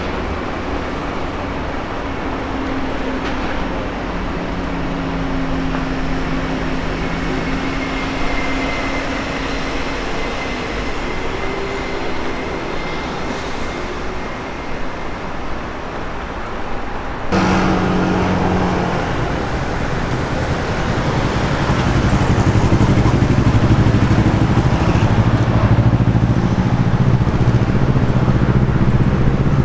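Road traffic: a steady hum of car engines and tyres, with passing vehicles. About 17 seconds in the sound cuts abruptly to a closer, louder traffic rumble.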